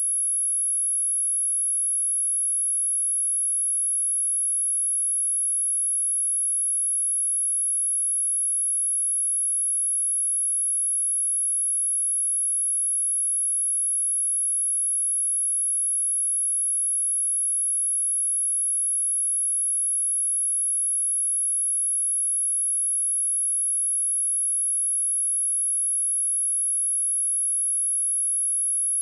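A single steady 10756 Hz sine-wave test tone, high-pitched and unchanging: a speaker test tone of the kind played to shake water and dust out of a speaker.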